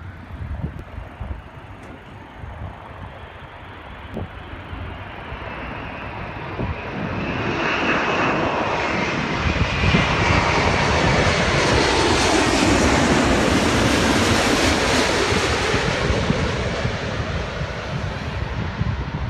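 Airbus A380's four jet engines on final approach, growing from a distant rumble to loud as the airliner passes low overhead. A whine falls steadily in pitch as it goes by, and the sound eases off a little near the end.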